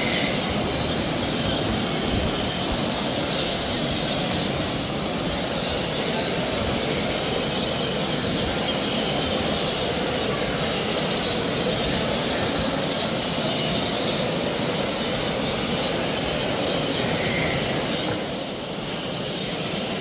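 Steady din of a large show hall holding thousands of caged songbirds, canaries and finch hybrids, chirping and singing all at once, over a low, even rumble of the hall.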